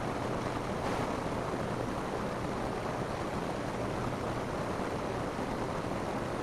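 Rain falling steadily on a roof: an even, unbroken hiss.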